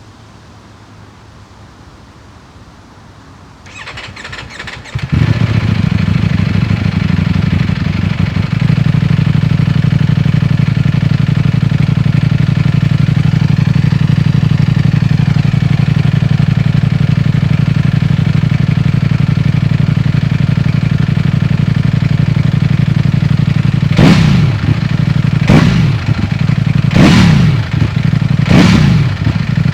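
Stock 2019 Ducati Panigale V4S's 1103 cc V4 engine being started: the starter cranks about four seconds in, the engine catches about a second later and settles into a loud, steady idle, then near the end it is revved in about five quick throttle blips.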